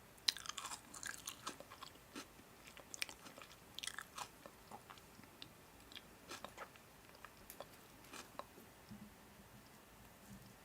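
A person chewing and biting crunchy food close to the microphone: faint, irregular crunches, thicker in the first few seconds.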